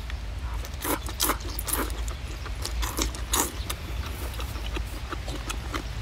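Mouth sounds of eating boiled crayfish tail meat: irregular wet smacks and clicks of chewing and biting, over a steady low rumble.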